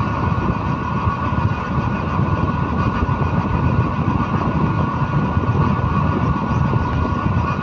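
Engine of the vehicle being ridden, running steadily while moving, with a low rumble of road noise beneath a few steady whining tones.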